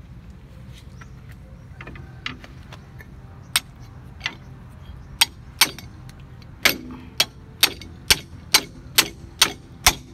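A series of sharp taps or knocks: a few scattered ones at first, then a steady run of about ten, roughly two a second, in the second half.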